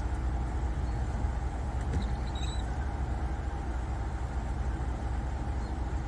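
Steady low outdoor rumble, even and unchanging, with a brief faint high chirp about two and a half seconds in.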